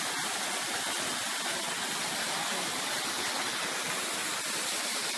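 Waterfall's water rushing in a steady, even roar of noise.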